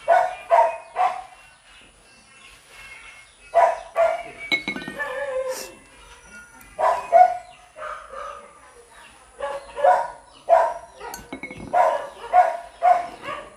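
A dog barking repeatedly in short runs of two to four barks, with pauses of a couple of seconds between runs.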